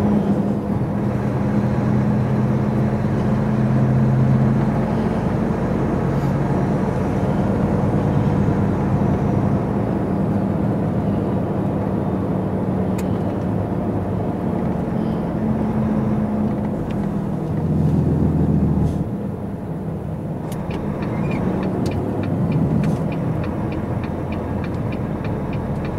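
Volvo FH truck's diesel engine running steadily while driving, heard inside the cab. About 18 s in the engine note swells briefly, then drops as the truck slows, and near the end a light, fast ticking runs alongside it as the truck turns.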